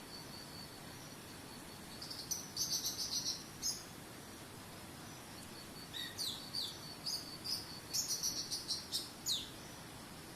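A songbird singing two bursts of rapid high chirps and quick down-slurred whistles, over a steady high insect trill and an even low rush of waterfall water.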